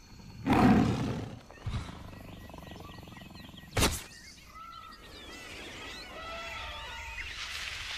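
A big cat's roar about half a second in, a single sharp crack just before four seconds, then a stretch of warbling bird calls.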